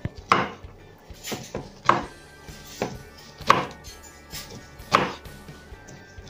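Kitchen knife slicing a star fruit into pieces on a wooden cutting board. Each cut ends in a sharp knock of the blade on the board, about six cuts at uneven intervals.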